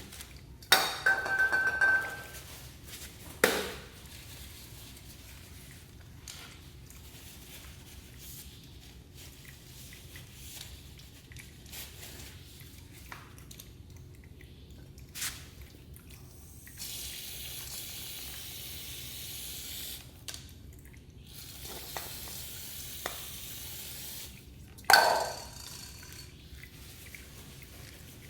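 Metal tools and parts clinking and clanking during a motorcycle oil change, with louder ringing clanks about a second in and again near the end. A steady hiss lasts several seconds midway.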